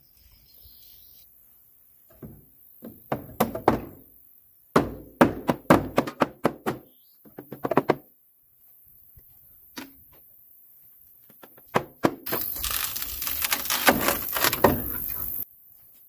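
Weathered boards of a wooden well housing being knocked and pulled at, a run of irregular wooden thunks and cracks in two clusters. Later comes a loud, steady rushing noise lasting about three seconds that starts and stops abruptly.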